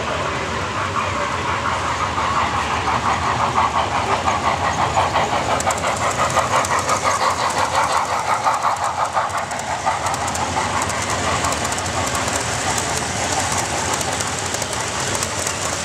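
Large-scale model freight train running across a model truss bridge, its wheels clicking rhythmically over the track; the pulsing builds for a few seconds, is strongest in the middle, and fades after about ten seconds as the cars pass.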